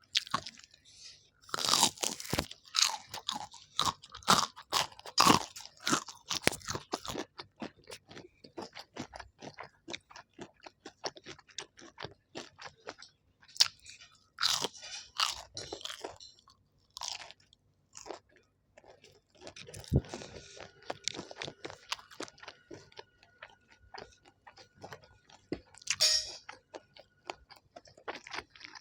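A person eating: irregular crunching bites and chewing of crisp food, with short pauses between mouthfuls.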